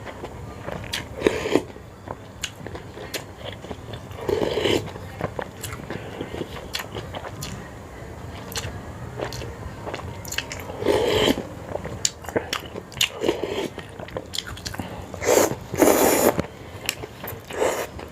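Close-up eating of a bowl of Sarawak laksa: steady chewing and biting clicks, broken by about six short, louder bursts, the longest about a second before the end.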